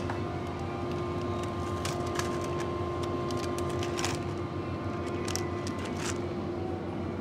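Steady hum of an open refrigerated display case, with a few short crinkles and taps from a plastic snack wrapper and cup being handled.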